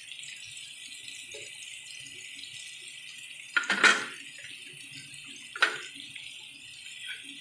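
Julienned chayote, tomato and onion sizzling in hot oil in a frying pan, a steady high hiss. Two short knocks break through, one about halfway and another about two seconds later.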